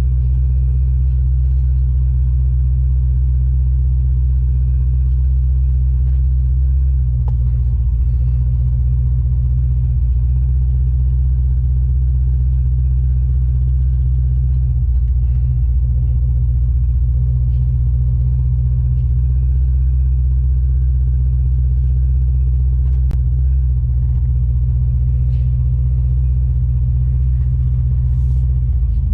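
LS-swapped 1989 Chevrolet Caprice's V8 and drivetrain on the move, a steady low rumble that shifts slightly now and then as the car cruises.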